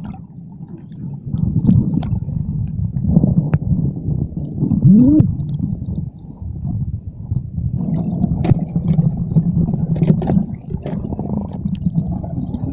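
Underwater sound: a muffled, low gurgling rumble of water and bubbles moving around the submerged camera, broken by a few sharp clicks and one short rising gurgle about five seconds in.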